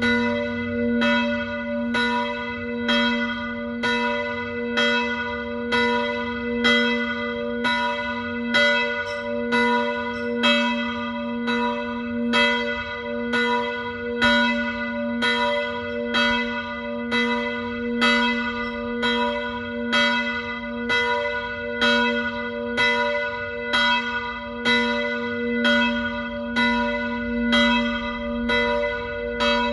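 Church bells ringing in a continuous peal, about one stroke a second. Each stroke rings on into the next under a steady hum.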